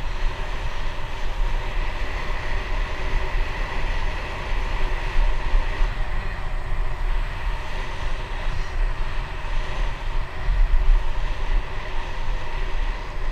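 Wind buffeting the GoPro's microphone while a road bike rolls along an asphalt path, a steady rumbling rush of wind and tyre noise.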